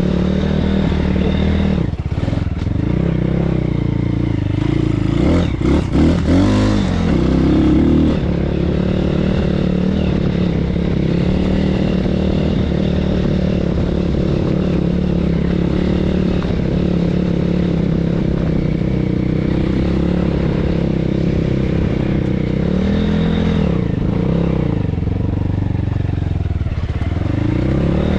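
BSE PH 150 pit bike's 150 cc single-cylinder four-stroke engine running under way at a fairly steady speed, with brief rises and falls in revs about six seconds in and again near the end. The revs are set high, which the rider finds a problem when he wants to ride slowly.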